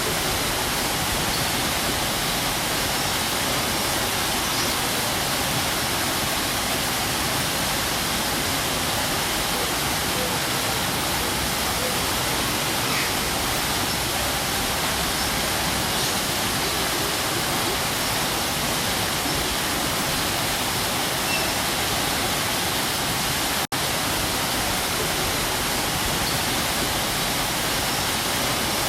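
Waterfall: a steady, even rush of falling water with no rhythm or pauses. It breaks off for a split second about three-quarters of the way through, then carries on unchanged.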